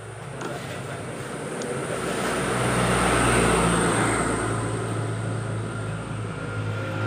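A motor vehicle going past, its noise swelling to a peak about three seconds in and then fading away, over a steady low hum.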